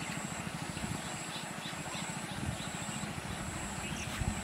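Steady low outdoor rumble with a faint, steady high-pitched whine above it, and a few short faint chirps about a second and a half in.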